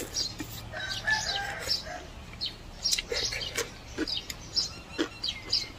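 Small birds chirping over and over, with a chicken calling once, drawn out for about a second, about a second in. Soft clicks of eating come every second or so.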